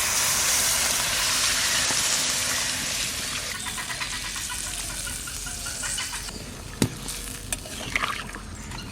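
Hot water added to a pan of frying duck meat and spices, hissing loudly for the first few seconds, then settling into a softer sizzle. A sharp knock comes a little before seven seconds in, with a few lighter clicks about a second later.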